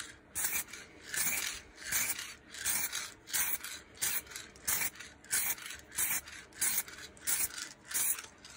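Aerosol can of OD green spray paint hissing in short repeated bursts, about two a second, as light passes are sprayed across a suppressor.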